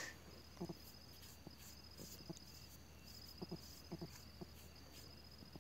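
Faint night ambience: an insect trilling, a steady high-pitched tone held in long stretches with brief breaks, with a few faint soft taps.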